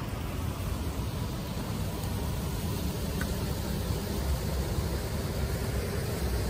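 Steady outdoor rushing noise with a heavy low rumble and no distinct events.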